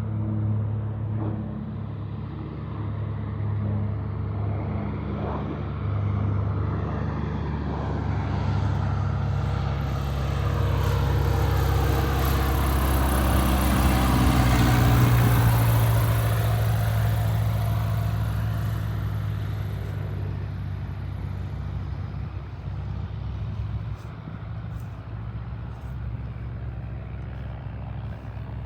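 Floatplane engine and propeller passing close by: the sound builds to its loudest about halfway through, the pitch drops as it goes past, and it fades away.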